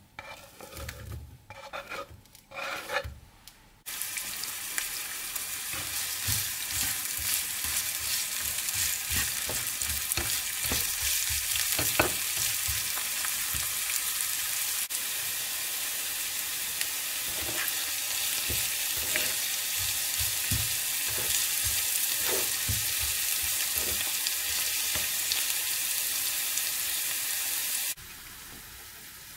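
A few knocks as chopped onion is tipped from a wooden cutting board into a frying pan, then, about four seconds in, a steady sizzle of onions frying in hot oil, with occasional clicks from stirring. The sizzle cuts off suddenly near the end.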